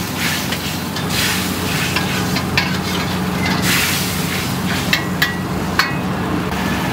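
Metal ladle stirring and scraping a thick sauce in a wok, the sauce sizzling and bubbling over a steady low hum, with a few sharp clinks of the ladle against the wok in the second half.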